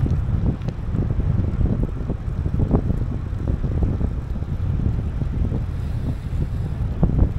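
Wind buffeting the microphone of a camera on a moving road bike: a continuous low rumble with irregular gusty flutters.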